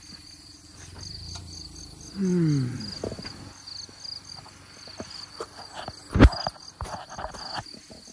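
Crickets chirping in a steady rhythmic pulse through the night. About two seconds in comes a short falling, voice-like sound, and about six seconds in a sharp knock amid light handling noise.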